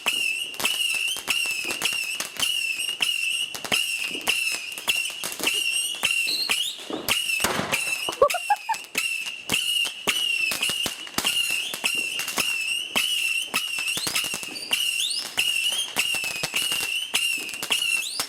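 Fireworks finale: a rapid, continuous crackle of firework bursts over a steady warbling high whistle, with short rising whistles and one louder bang about seven to eight seconds in.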